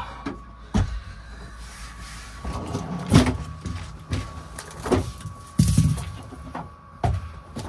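Household handling sounds in a campervan: knocks and clicks as a folding table is set up on its leg, then the fridge drawer being slid open and food taken out. A handful of separate knocks spread over several seconds, with a faint steady hum beneath.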